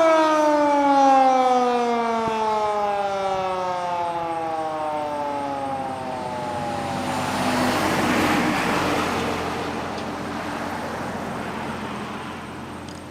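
Federal Model 2 electromechanical siren winding down: its single wailing tone slides steadily lower as the rotor coasts to a stop, and it fades out about halfway through. A broad rush of noise swells and fades just after.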